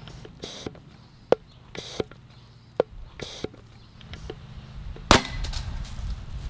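PVC vacuum cannon firing: one loud, sharp crack about five seconds in as a foil burst disc gives way. Before it come a few light clicks and three short hisses.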